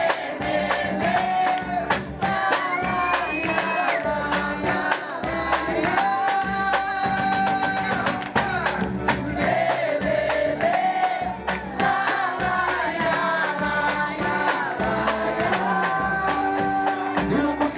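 Music with singing over a steady rhythmic beat and percussion.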